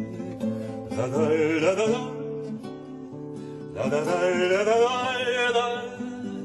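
Acoustic guitar played steadily under a man's singing voice, which comes in with two long sung phrases wavering with vibrato, about a second in and again near four seconds in.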